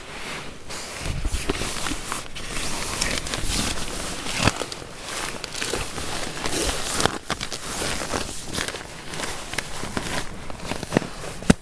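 Nylon tent fabric, a down sleeping bag and an inflatable sleeping mat rustling and crinkling in an uneven stream, with small knocks, as someone shifts and crawls about inside a small tent.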